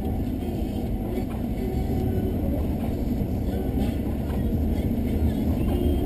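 Steady low rumble of a car's engine and tyres on a snowy road, heard from inside the cabin while driving.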